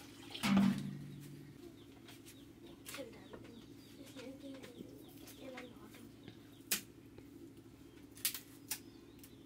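An aluminium vessel clanks once against a pot about half a second in and rings briefly. This is followed by scattered knocks and crackles of firewood being pushed into a wood fire in a mud hearth, with faint bird calls in the background.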